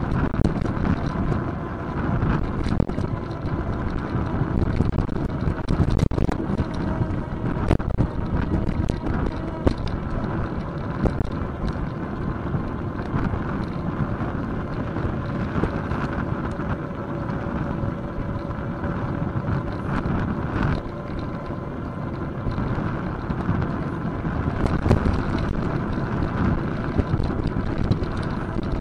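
Wind buffeting the microphone of a bicycle-mounted camera, over a steady rumble of tyres on the road, with small knocks and rattles scattered throughout as the bike rolls over the road surface.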